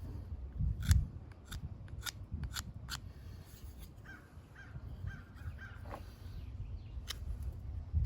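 Swiss Army knife blade cutting into dry wood in short, sharp strokes: a quick run of cuts in the first few seconds and another near the end, as the end of a bow drill spindle is faceted.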